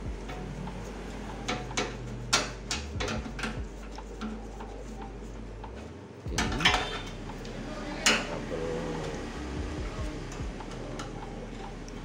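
Metal clinks and taps as a screw is fitted into a microwave oven's sheet-metal chassis, screw and screwdriver knocking against the metal. The knocks are irregular, with the loudest a little past the middle.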